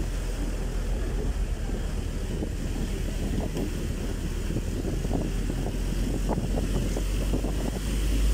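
Wind buffeting the microphone in the open back of a moving mini truck: a steady low rumble with irregular gusty rustling over it.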